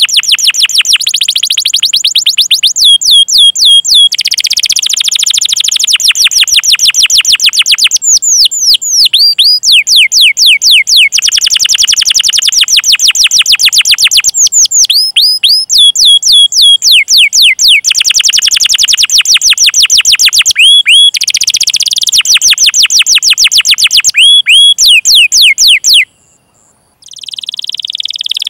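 Domestic canary singing: long, fast rolling trills of rapidly repeated notes, broken by sweeping 'cuit cuit' chirps. Near the end the song stops for about a second, then resumes.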